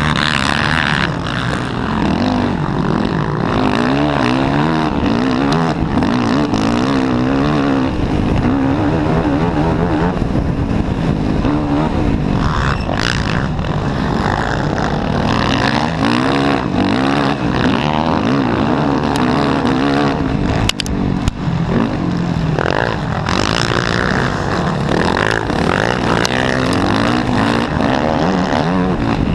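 Racing quad engine running hard, revving up and down through the gears and turns, close up from the rider's helmet, with wind and sand noise over it. A sharp knock about two-thirds of the way through.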